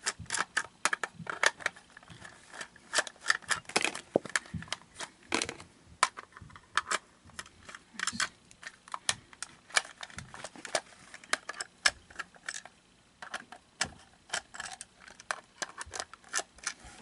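Rapid, irregular clicks and taps of a screwdriver working the screws of a Gemmy animatronic toy's plastic housing, with the plastic case knocking as it is handled.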